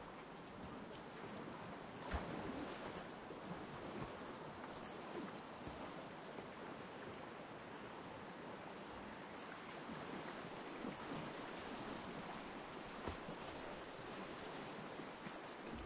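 Shallow river rapids rushing and splashing steadily around a whitewater kayak as it paddles downstream, with a few brief sharp knocks, one about two seconds in.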